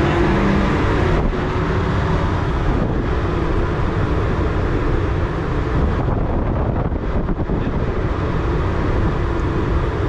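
Steady low drone of a large ship's machinery running while the ship lies at anchor.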